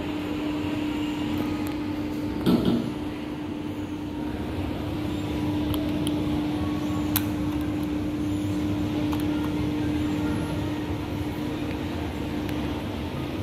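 Steady hum with a constant low tone throughout. A brief thump comes about two and a half seconds in, and a single sharp click about seven seconds in, where the elevator's down hall-call button is pressed.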